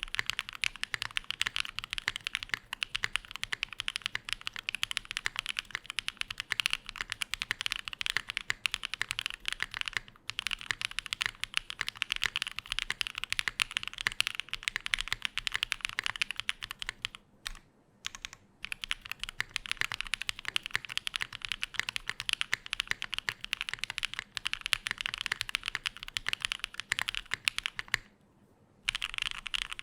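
Continuous typing on a Frog Mini custom mechanical keyboard built with no foam, a laminate plate, lubed switches and lubed stabilisers: a dense patter of keystrokes broken by a few short pauses.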